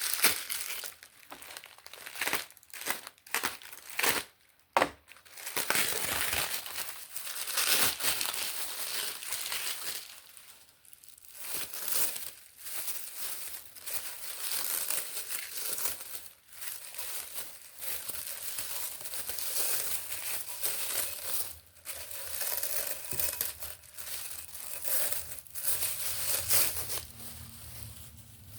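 Packing material crinkling and tearing as a pot is unwrapped by hand, with a few sharp clicks and knocks in the first five seconds.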